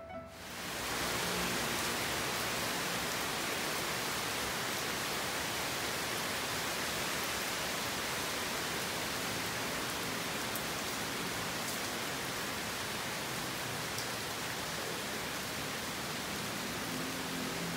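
Steady rain falling, an even hiss that fades in within the first second and holds level.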